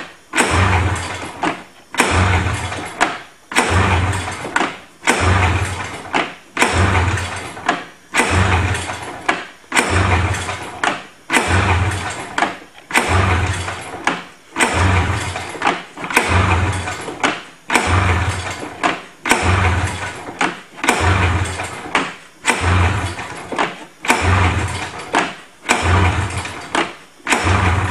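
Recoil pull-starter on a cold Polaris snowmobile's two-stroke engine yanked over and over, about once every one and a half seconds, the engine turning over with each pull but not catching. The sled has no primer and runs on last year's stale gas, with only a squirt of gas in the air intake to help.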